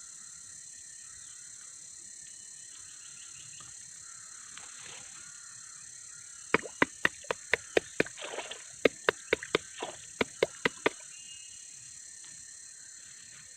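A quick run of about fifteen sharp knocks or chops, about three a second, starting a little past the middle and stopping a few seconds later, over a steady high insect drone of the tropical forest.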